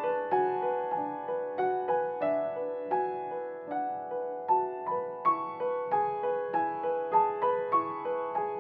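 Background music: a gentle piano-like melody of evenly paced, decaying notes, several a second.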